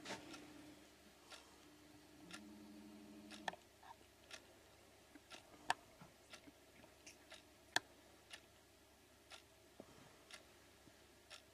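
Faint, sharp clicks at uneven intervals, roughly one to two a second, with two louder ones around the middle. A low steady hum sounds under them for the first three and a half seconds, then stops suddenly.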